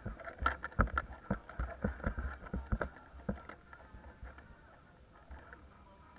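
Jeep rolling slowly along a town street: a run of irregular knocks and rattles over a low rumble for about the first three seconds, then quieter as it comes to a stop.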